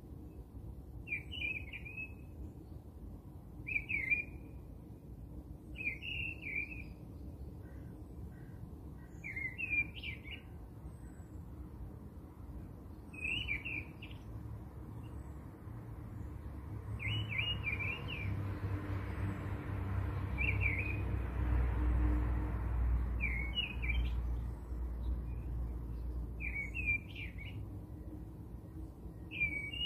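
Short bird chirps repeating every few seconds, with a low rumble swelling through the middle.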